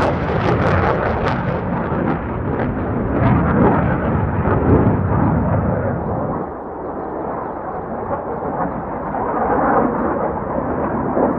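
Fighter jet engine roar from an F-22 Raptor's twin afterburning turbofans as it makes a fast, low pass. It is a loud, steady rumble with a crackling edge over the first few seconds, easing slightly about six seconds in.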